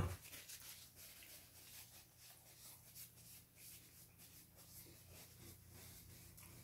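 Faint close-up chewing of food, with small irregular crunches about twice a second. A single thump at the very start.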